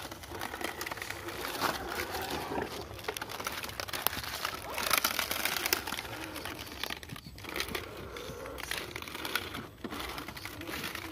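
RGT EX86100 V2 RC crawler clambering over mud, roots and dry leaves, its tyres scrabbling and crunching the leaves, with a louder rough stretch about five seconds in.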